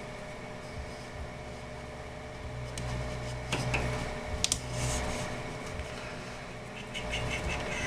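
Faint handling noise of power-supply cables being worked into a computer case: a few light clicks and rustles over a steady low hum.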